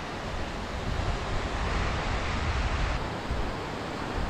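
Rushing water of a rocky mountain stream, with wind rumbling on the microphone. The high hiss thins about three seconds in.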